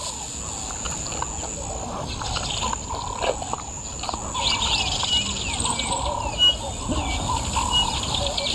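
Wild birds chirping and calling over a steady low background hum of the bush. In the second half one bird repeats a short, high note about once a second.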